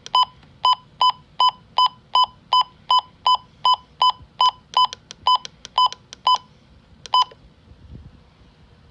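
Weather radio giving a rapid run of short, identical electronic beeps, about two and a half a second, that stops about seven seconds in after one last beep.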